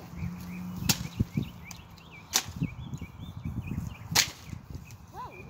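A long pole striking the branches and leaves of a magnolia tree, three sharp cracks a couple of seconds apart.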